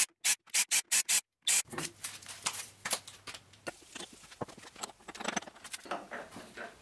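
Small metal clicks and rattles as an end mill is pushed into a collet chuck on the milling machine spindle and the collet nut is tightened with a spanner. It opens with a rapid run of short, sharp bursts, about six a second, lasting a second or so.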